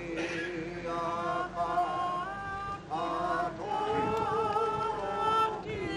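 A group of voices singing a Māori waiata together, in long held notes with short breaks between phrases.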